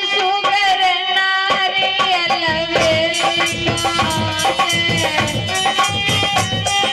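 Devotional kirtan music: a held, pitched melody line with singing, joined by a steady hand-drum beat about two and a half seconds in.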